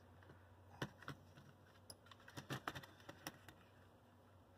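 Faint, scattered small clicks and taps of plastic model-locomotive parts being handled and worked apart by hand, a few near the start and a quick cluster later on.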